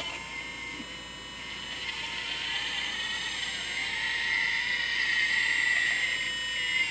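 Kabolite 970 RC hydraulic excavator's pump whining steadily as the boom lifts and curls a loaded bucket, growing louder over the first few seconds.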